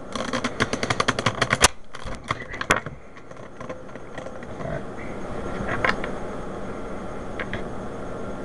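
Plastic pieces of an older-model Rubik's Cube clicking rapidly, about ten clicks a second for the first second and a half, as the half-reassembled cube is worked and pieces are pushed into place. Two sharp snaps follow about a second apart, then quieter handling with a few soft clicks.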